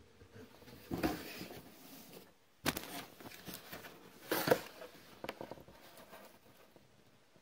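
Cardboard box being handled and its flap opened by hand: cardboard scraping and rustling in three louder bursts about a second and a half apart, then a few lighter clicks and rubs.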